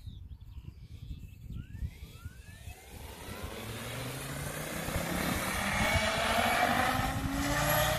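Electric RC helicopter with an Egodrift brushless motor spooling up: the motor whine and the rotor sound rise steadily in pitch and loudness, then level off about six seconds in as it lifts into a hover.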